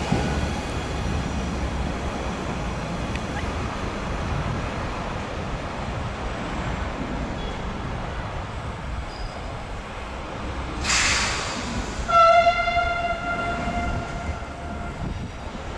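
Trenitalia Jazz regional electric train running through the station with a low rumble. About eleven seconds in comes a short hiss, then the horn sounds one steady note for about three seconds.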